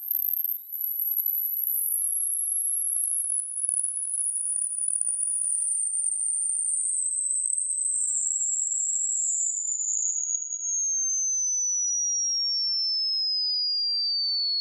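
Hearing-test pure tone, a single very high-pitched whistle sweeping slowly downward in pitch. It falls in small steps for the first ten seconds or so, then glides smoothly lower and cuts off suddenly.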